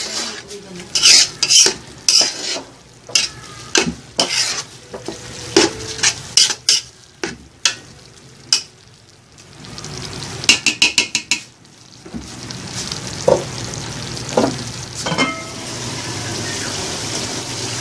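A metal spoon scrapes and knocks against an aluminium pot while ground beef is stirred and fries in its fat. There is a quick run of taps on the pot about ten and a half seconds in. Then the stirring mostly stops and a steady frying sizzle takes over, broken by a few clanks.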